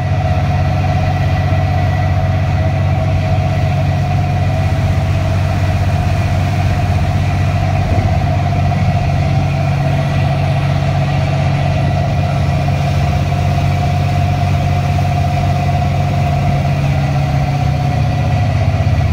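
A fishing boat's engine running steadily while the boat steams along: a loud, even low hum with a steady higher tone above it.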